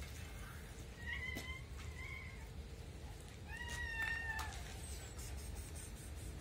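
A cat meowing three times, short calls about a second and two seconds in, then a longer, louder meow near the middle.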